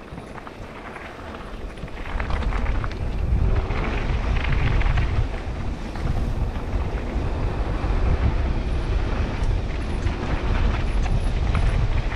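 Wind buffeting the microphone on a mountain bike ride down a trail, with tyres rattling and clicking over rough ground. The wind noise jumps up about two seconds in as the bike speeds up.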